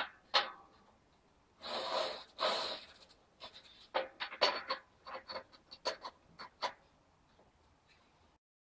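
Metal parts on a bicycle wheel hub being handled and fitted by hand: two longer hissing, rubbing swells about two seconds in, then a run of irregular sharp metallic clicks.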